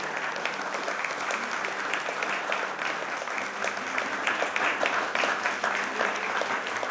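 A small group of people applauding, many hands clapping steadily together.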